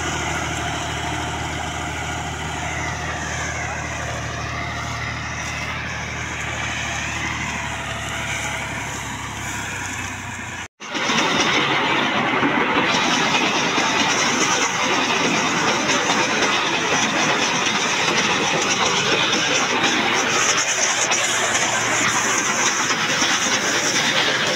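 New Holland tractor's diesel engine running steadily while driving a front-mounted wheat reaper through the crop. About ten seconds in, the sound cuts briefly and comes back louder and harsher, close to the engine and reaper.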